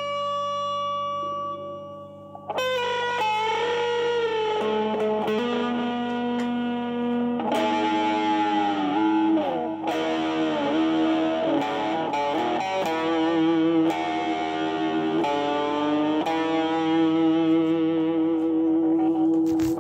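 Solo electric guitar, a Stratocaster-style single-coil solid-body, playing slow lead lines. Long held notes are bent up and down and shaken with wide vibrato, with a short break about two seconds in.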